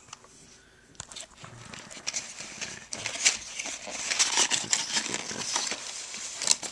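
Rustling and many small clicks of packaging being handled, growing busier and louder over the last few seconds.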